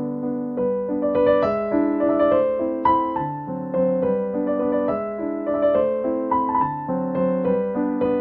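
Background music: a gentle melody played on a piano-sounding keyboard, with new notes every fraction of a second over held lower notes.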